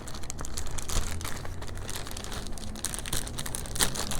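Packaging crinkling and rustling as it is handled and opened, with irregular crackles throughout.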